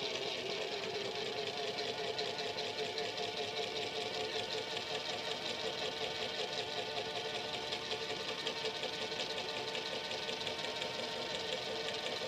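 Washing machine running: a steady motor hum with a fast, even rattle.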